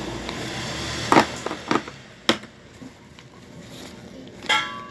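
Plastic grocery bags and packaged food being handled, rustling, with three sharp knocks in the first half as items are moved on the table. A steady background hiss drops away a little over two seconds in.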